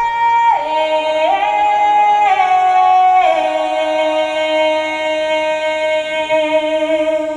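A female voice singing long, held notes with a fainter lower note beneath it. The melody steps down, up and down again in slow steps over the first three seconds, then settles on one note held for about four seconds.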